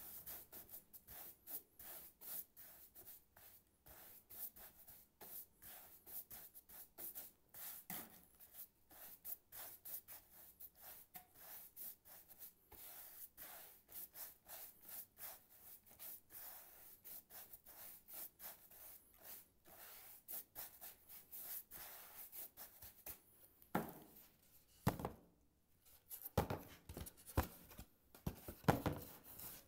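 Brush scratching and rubbing primer onto a stretched canvas, a dense run of quick faint scrapes, with a few louder knocks near the end.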